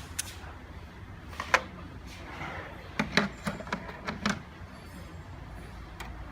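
Hand tools and a steel tool case being handled: a string of sharp clicks and knocks, with a quick run of about six in the middle.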